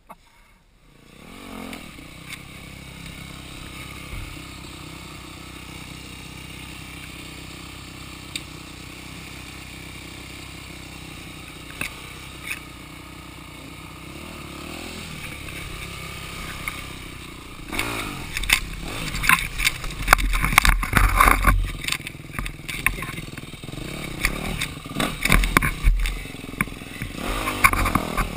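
Dirt bike engine idling steadily, then from about 18 seconds in revving in uneven bursts under throttle, with clatter and scraping as the bike is ridden over rough woodland trail.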